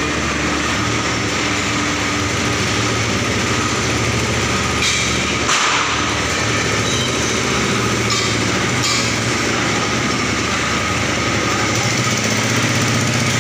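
Steady din of factory machinery, a continuous hum under a dense hiss, with a few short knocks about five and nine seconds in.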